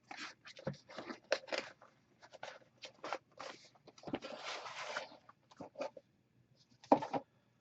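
Shipping packaging being handled and opened by hand: irregular crinkles, scrapes and clicks, with a longer rustling tear about four seconds in and a sharp snap near the end.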